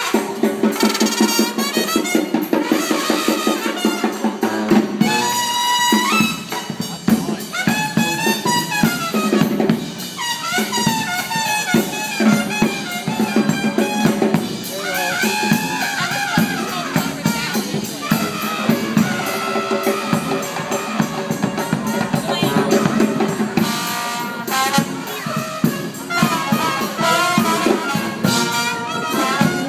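Street brass band playing: trumpets carry the melody over two sousaphones and a steady drum beat.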